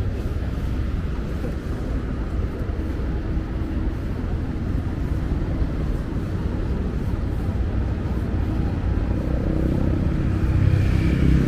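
Steady low rumble of city street traffic, with one vehicle's engine getting louder near the end.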